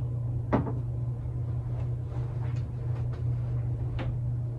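A sharp knock about half a second in, then a scatter of lighter clicks and knocks, over a steady low hum.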